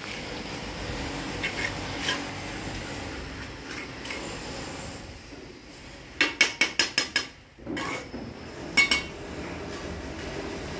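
Steel bricklaying trowel scraping mortar and tapping clay bricks as they are laid, with a few light taps early, a quick run of about six sharp taps a little past the middle, and two more near the end.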